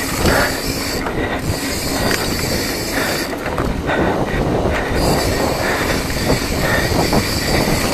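Mountain bike rolling fast over a dirt trail: tyre rumble on the ground with continual rattling and clattering from the bike.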